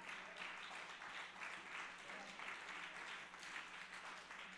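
Congregation applauding: many hands clapping at once, steady throughout.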